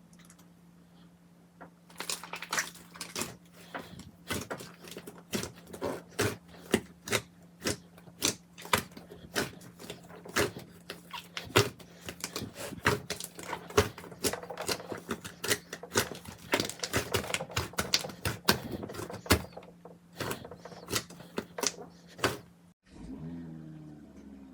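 Slime being pressed and worked by hand, giving a fast, irregular run of sharp crackling pops and clicks over a faint steady hum. It starts about two seconds in and stops abruptly near the end.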